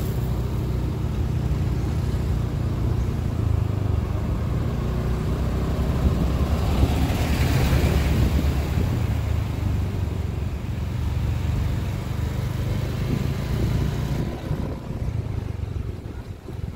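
Small motorcycle's engine running steadily as the bike rides along, heard from on the bike with a dense low rumble. The sound eases and grows quieter a couple of seconds before the end.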